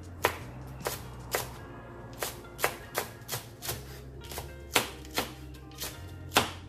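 Kitchen knife slicing green chilies on a cutting board: about a dozen sharp, uneven knocks as the blade meets the board, over background music.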